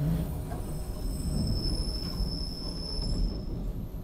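SEPTA Broad Street Line subway car rolling along the track, heard from inside the car: a steady low rumble with a high, thin wheel squeal that sets in about half a second in and dies away near the end.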